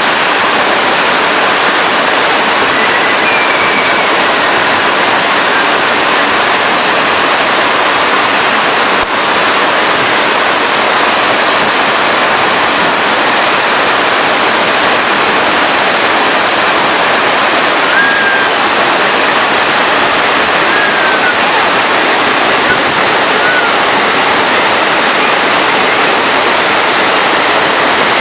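Waterfall with a steady, loud rush of falling water. A few faint short high chirps sound over it.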